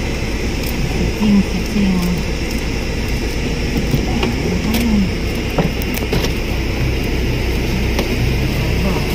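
Steady hum of a car's engine idling with the air conditioning blowing, heard inside the cabin.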